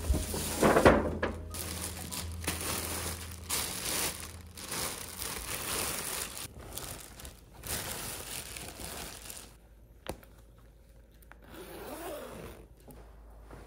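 Plastic wrapping and a thin fabric cover crinkling and rustling as a new leather jacket is unwrapped, loudest about a second in. The rustling dies down after about nine seconds, followed by a single click.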